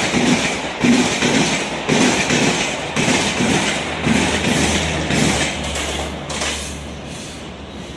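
Passenger train coaches rolling past, wheels clattering over rail joints in a steady rhythm of about one knock a second, fading as the train moves away.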